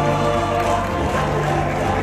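Small mixed vocal ensemble singing held chords into handheld microphones.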